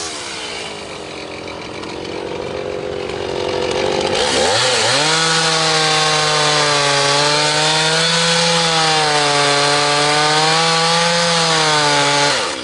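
Stihl two-stroke chainsaw idling for about four seconds, then revved up and cutting into a large wooden stump under load, its engine note wavering as it works through the wood. Near the end the revs drop away suddenly as the saw comes out of the cut.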